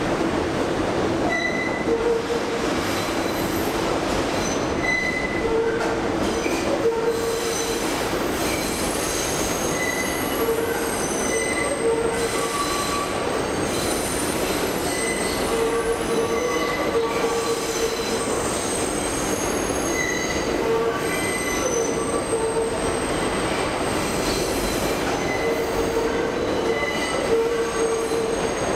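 New York City Subway 6 train running through the station without stopping, a steady rumble of wheels on rail with high-pitched wheel squeal that comes and goes every few seconds.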